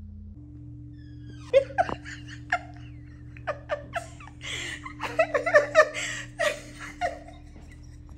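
Laughter breaking out in short, sharp bursts about a second and a half in, building into a longer fit of laughing in the middle, over faint steady background music.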